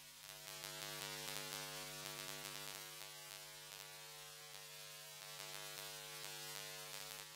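Handheld angle grinder running with a steady whine, its disc grinding the steel of an old axe head, the hiss of the grinding swelling and easing as the disc is pressed on and lifted off.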